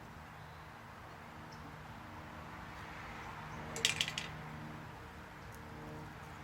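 A short run of light metallic clicks about four seconds in, over a faint steady hum.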